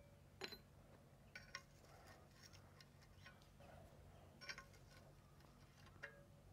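Near silence, broken by a handful of faint, sharp metallic clicks from pliers handling thin strips of metal on the clamped blade. The clearest come about half a second in and about four and a half seconds in.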